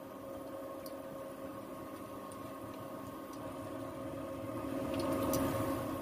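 Potato-and-cheese sticks sizzling in hot oil in a saucepan over the steady hum of an induction cooktop. A utensil ticks against the sticks and pan a few times, and the sizzle swells briefly about five seconds in.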